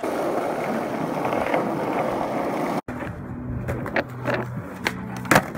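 Skateboard wheels rolling on street asphalt, a steady rolling rumble. After an abrupt cut, a quieter stretch with several sharp skateboard clacks, the loudest near the end.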